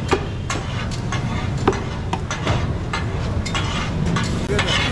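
Butcher's cleaver chopping meat on a wooden block: irregular sharp knocks, about two a second, over a steady hum of street traffic.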